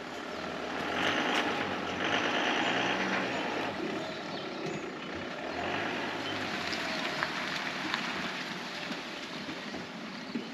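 Tow vehicle's engine running at low revs while it slowly manoeuvres a caravan, with a louder spell from about one to four seconds in.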